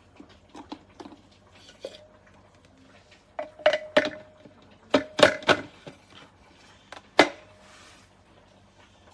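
Food processor parts being handled: several sharp clinks and knocks of hard kitchen pieces against each other and the counter, in clusters, with a brief ring after the loudest ones.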